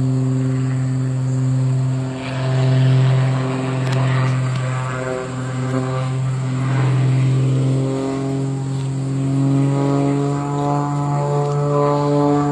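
Propeller aircraft's engine droning overhead at a steady pitch, which climbs slightly in the second half.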